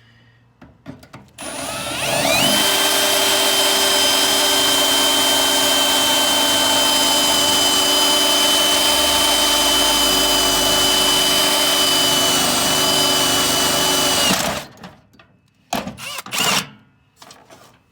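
Power drill spinning up with a rising whine, then running steadily at speed for about twelve seconds while drilling out a metal piece of the old toolbox lock, then stopping. A few knocks follow near the end.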